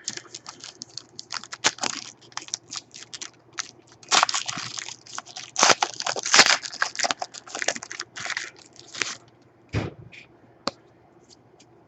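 Foil trading-card pack wrapper crinkling and crackling as it is torn open, a dense run of sharp crackles that thins to a few separate clicks near the end.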